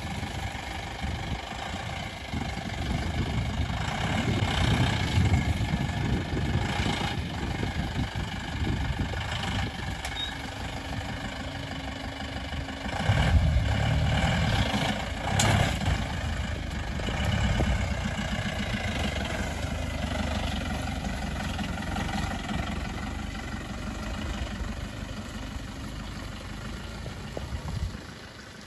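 Four-wheel-drive SUV engine running at low speed as it crawls through mud and ruts, swelling louder twice as it pulls through, with one short sharp knock midway.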